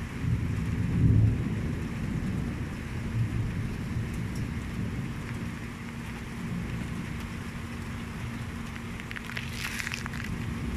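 Steady rain falling, with a low rumble swelling about a second in and a brief crackle near the end.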